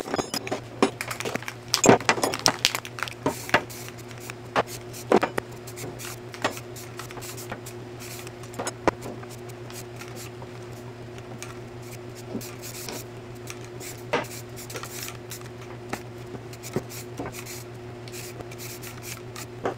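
Aerosol spray-paint can hissing in short bursts while small steel kart parts clink and knock as they are moved about on a workbench, over a steady low hum. The clicks come thick in the first few seconds, then thin out.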